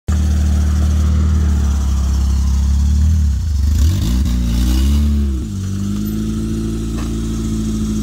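1990 Isuzu Impulse XS four-cylinder engine running. It is revved up and down a few times about halfway through, then settles back to a steady idle.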